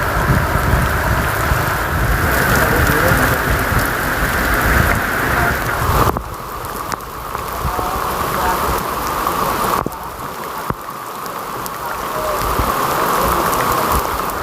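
Heavy tropical downpour with strong gusting wind, a dense steady rush of rain. The level drops suddenly twice, about six and ten seconds in.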